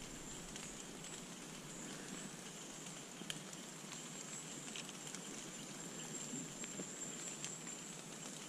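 Quiet wet-woodland ambience: faint drizzle ticking on fallen leaves, a few scattered drops, over a low steady hiss with a thin high tone.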